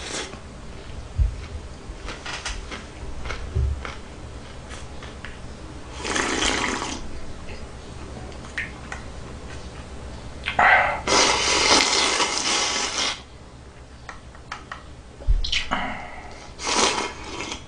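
A person slurping ramen noodles and broth from a bowl: three long noisy slurps, the loudest and longest about two seconds in the middle, with quieter chewing and mouth sounds between.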